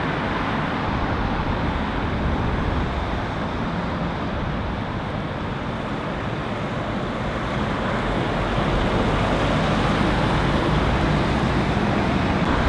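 Road traffic passing: cars going round a roundabout, then an articulated lorry with a flatbed trailer drawing near and passing close by, its low engine rumble growing louder from about eight seconds in.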